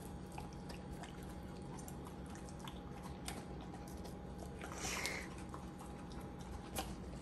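Bernese mountain dog taking and chewing a piece of mango: faint, scattered wet mouth clicks and smacks, with a brief hiss about five seconds in, over a steady faint hum.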